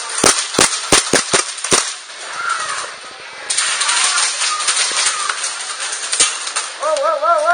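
Airsoft guns firing: a quick string of about six sharp shots in the first two seconds, then one more single shot later on.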